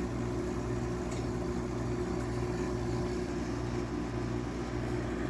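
2003 GE window air conditioner, built by LG, running with its rotary compressor and fan making a steady, droning hum that sounds very angry.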